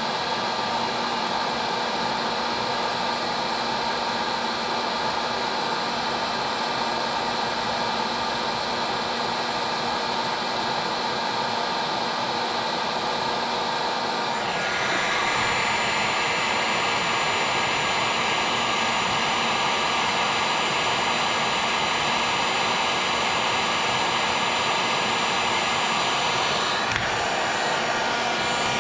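Heating tool running steadily with a constant blowing hiss, preheating a hay rake's hardened steel tine before welding; the sound grows a little brighter and louder about halfway through.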